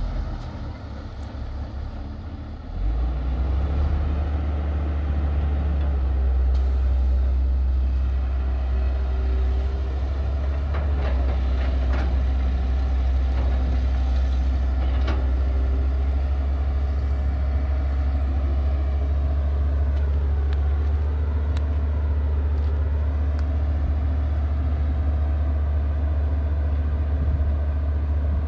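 Heavy diesel machinery working, a deep steady engine rumble that steps up in loudness about three seconds in and then holds.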